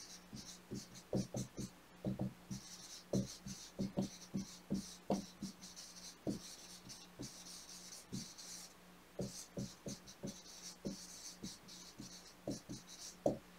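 Dry-erase marker writing on a whiteboard: a run of short strokes and taps as letters are formed, with stretches of scratchy hiss while words are written and brief pauses between words. A faint steady hum runs underneath.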